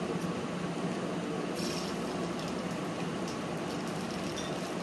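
Mustard seeds and urad dal sizzling in hot oil in an aluminium kadai, a steady hissing sizzle that grows brighter about a second and a half in, with faint crackles.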